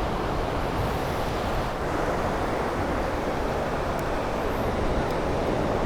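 Ocean surf breaking on a beach, with wind on the microphone, making a steady, even rushing.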